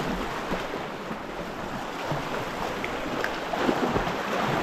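Sea surging and washing over a rocky shore ledge, a steady rush of surf that swells near the end, with wind on the microphone.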